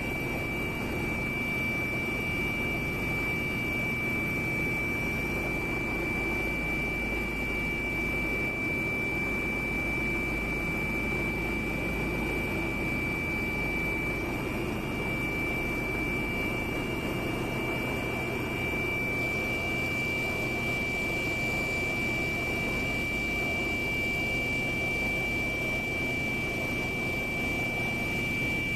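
Airliner cabin sound while taxiing: the jet engines running steadily as an even hum with a constant high-pitched whine over it.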